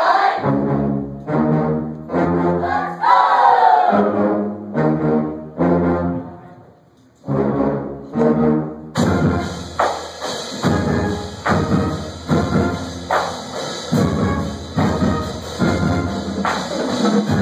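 A live band led by brass instruments plays held chords, with a brief drop-out a few seconds before the middle. About nine seconds in, drums and cymbals join and the full band plays on with a steady beat.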